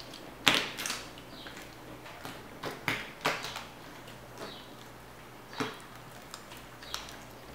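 Sticky white glue slime being kneaded and pulled up off a wooden tabletop by hand: scattered wet clicks and smacks, the loudest about half a second in. The slime is still sticky and stringy, only partly activated.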